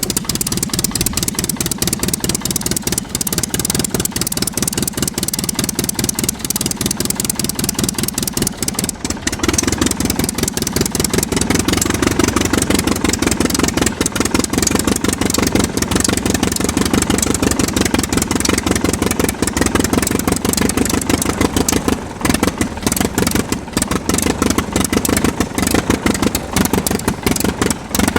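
Aircraft engine running steadily with a fast, even chatter of firing pulses. It gets a little louder about nine seconds in.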